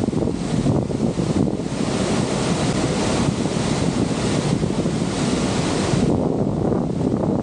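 Steady rush of the Niagara River's falling and tumbling water, with wind buffeting the microphone.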